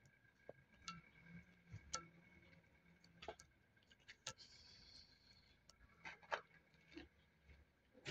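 Domestic cat chewing a cooked chicken bone: faint, irregular crunching clicks of teeth on bone, about one or two a second.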